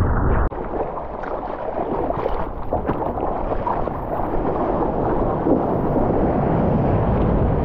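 Muffled underwater wash of a breaking wave as the surfer ducks under it with the camera. After that comes water sloshing and splashing right against the camera once it is back at the surface.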